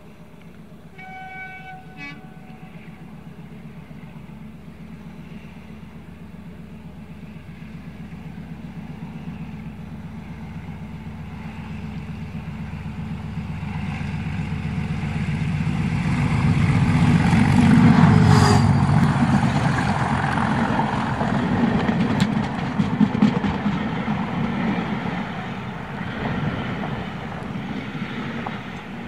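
Class 37 diesel locomotive's English Electric V12 engine working hard under load, growing steadily louder as the train climbs towards the listener and loudest as the locomotive passes about two-thirds of the way in, followed by the coaches rumbling and clicking by on the rails. A short horn toot sounds about a second in.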